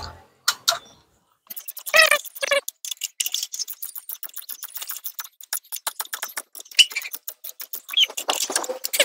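Ratchet wrench clicking in a fast, sped-up train as it turns a spark plug out of the engine. Short high-pitched squeaky chirps come through about two seconds in and again near the end.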